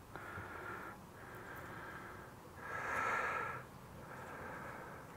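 A man breathing in and out through his nose close to the microphone, in four breaths of about a second each with short pauses between; the breath about three seconds in is the loudest.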